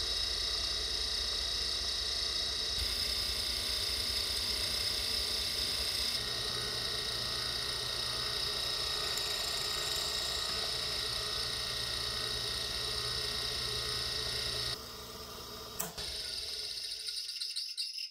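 1953 Delta Rockwell Homecraft drill press running, its repulsion-induction motor and belt-driven spindle giving a steady hum and whine, a little rough, while a twist bit drills into a pine board. About fifteen seconds in the sound drops, a single click follows, and it dies away near the end.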